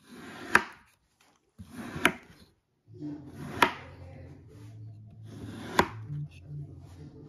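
Knife cutting down through a packed block of kinetic sand, four times. Each cut is a short grainy hiss that ends in a sharp tap of the blade on the plastic tray.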